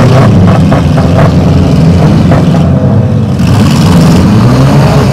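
Compact demolition-derby cars' engines running and revving hard together, loud and overdriven, with a few sharp knocks in the first second or so.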